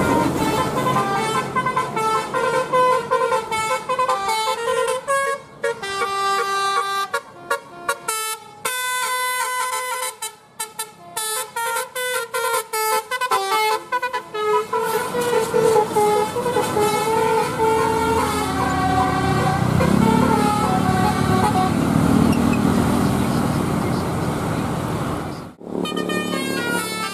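Indonesian bus 'telolet' horn: a set of tuned air horns playing a melody of stepping notes, with quick stuttering toots around the middle and longer held notes later, and a low rumble underneath for a few seconds. The horn cuts off briefly shortly before the end, then sounds again.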